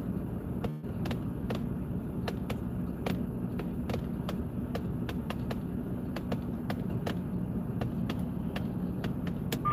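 Steady low hum inside a car's cabin, with irregular light ticks of raindrops hitting the windshield and roof, about two or three a second. A short high beep starts at the very end.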